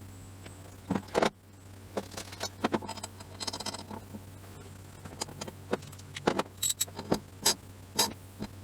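Irregular metallic clicks and taps of tools on the compressor's oil plug as it is screwed into a new Heli-Coil thread insert, with a quick run of clicks about three and a half seconds in.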